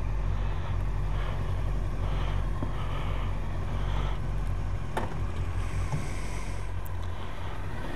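Motorcycle engine running at low speed, a steady low rumble, heard through the bike-mounted action camera.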